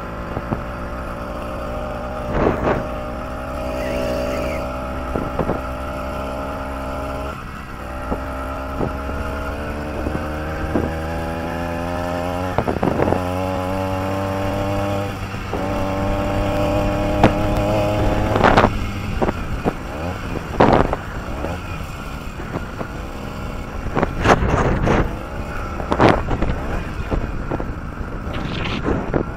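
Two-stroke bicycle engine from a cheap Chinese "80" kit running under way, its buzzing note rising steadily as the bike gathers speed. In the second half the note turns uneven and is broken by several sharp knocks.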